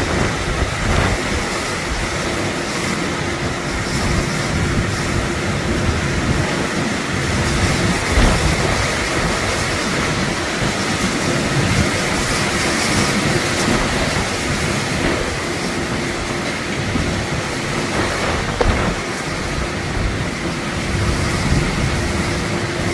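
Heavy typhoon rain and strong wind, a dense, steady rush of noise.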